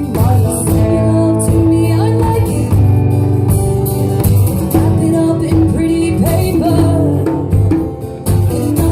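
Live band playing a song: singing over guitar, with drums and cymbals keeping a steady beat.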